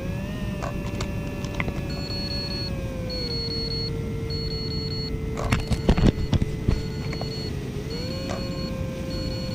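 Electric motor and two-blade propeller of an RC flying wing whining steadily. Its pitch sags a little and then climbs again near the end as the throttle changes. Short trains of high electronic warning beeps repeat about once a second from the pilot's radio gear while the video link is lost. A cluster of loud knocks comes about six seconds in, over wind rumble.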